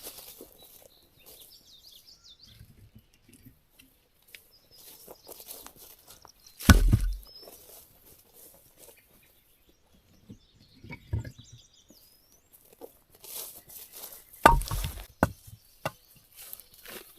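Camping gear being handled and set down: scattered rustling and clicking, with a heavy thump about seven seconds in and another burst of thumps near the end. Birds chirp faintly between them.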